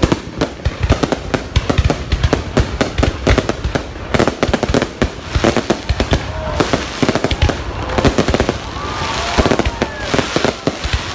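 Fireworks going off in rapid succession, a dense run of bangs and crackle with no break. A few short rising-and-falling tones sound over it in the second half.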